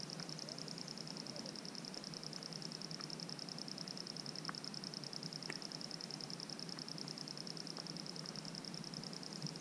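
Insects trilling: a steady, high, rapid trill, with a few faint ticks.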